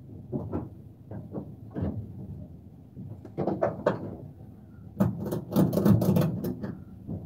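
Irregular knocks, clicks and rattles of things being handled, with a denser run of clattering about five seconds in.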